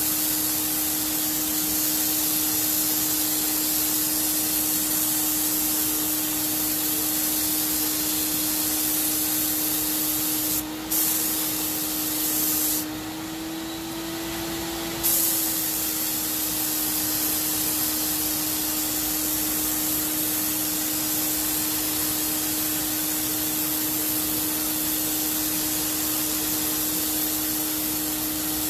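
Graco FinishPro HVLP 9.5 turbine paint sprayer running with a steady whine while the spray gun hisses out paint. The hiss stops briefly about 11 seconds in, and again for about two seconds a little later, when the turbine's pitch rises slightly.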